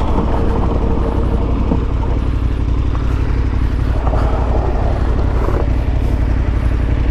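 KTM 1290 Super Adventure S's V-twin engine running steadily as the bike rides over dirt, with a heavy low rumble throughout.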